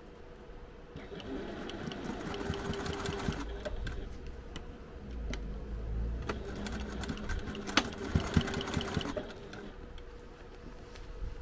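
Domestic sewing machine stitching through a thick stack of fabric and Pellon stabiliser layers, in two runs. It starts about a second in, pauses briefly around the middle, then runs again with a few sharp clicks and stops near the end.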